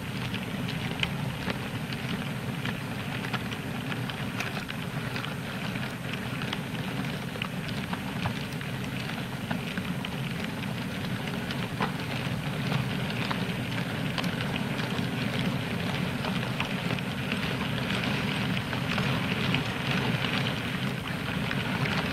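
Model railway goods wagons rolling past on the track: a steady rumble of small wheels with many fine clicks and crackles at the rail joints, growing a little louder toward the end.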